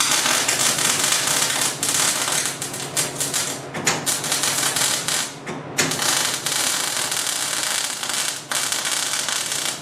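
Electric arc welding: the arc crackles steadily as steel spacers are welded between two pieces of pipe, cutting out briefly about four and six seconds in and again shortly before the end.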